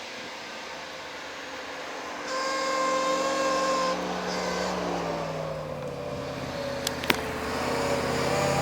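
Off-road vehicle engine running, getting louder and climbing in pitch about two seconds in, then wavering up and down, with a couple of sharp clicks about seven seconds in.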